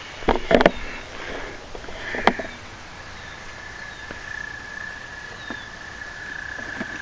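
A few sharp knocks and handling noises in the first couple of seconds as a minnow trap is reached for at the canal bank. From about three seconds in, a steady high-pitched tone holds on in the background.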